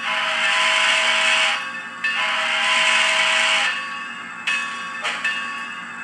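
Model steam locomotive's sound decoder playing a steam whistle through a small speaker: two long blasts, the signal for moving off. Then a bell rings, about one strike every half second or so, as the locomotive starts.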